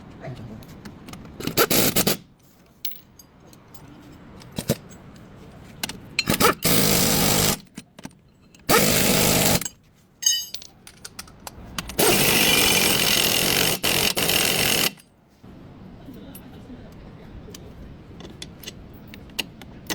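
Power tool run in four bursts, each lasting from under a second to about three seconds, the last one longest.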